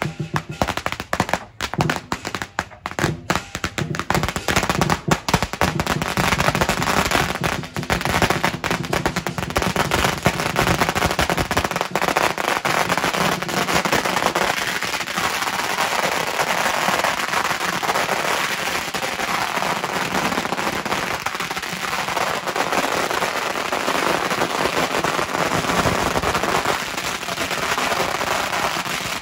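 Long strings of firecrackers going off in rapid succession. The cracks are separate at first, then merge within a few seconds into a dense, continuous crackle of bangs.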